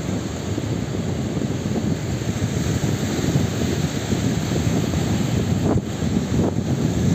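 Strong wind buffeting the microphone in a steady, gusting rumble, over surf washing up on the beach.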